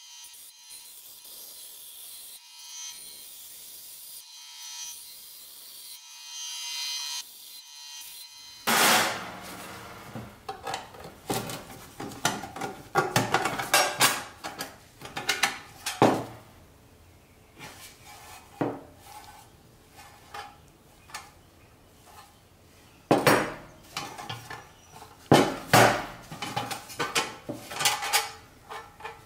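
A benchtop bandsaw running and cutting thin sheet metal, a steady hum with a high hiss. Then, about nine seconds in, a thin folded sheet-metal box is handled and bent by hand on a workbench, with irregular sharp knocks and clanks.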